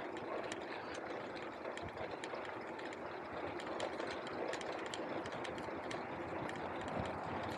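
Bicycle riding along a street: a steady rolling and rattling noise with frequent small clicks and ticks.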